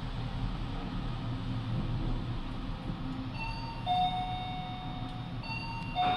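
LRT Line 2 train running with a steady low rumble inside the carriage. About three and a half seconds in, an electronic falling two-note chime sounds, and it comes again near the end, along with a short knock.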